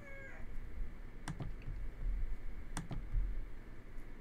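Computer mouse clicking a few times, in two quick clusters about a second and a half apart. At the very start the tail of a rooster's crow dies away.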